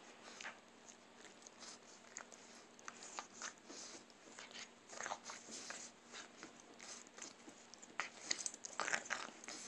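Boston Terrier puppy chewing and gnawing a plush stuffed toy: soft, irregular mouthing and fabric rustling, busier about five seconds in and again near the end.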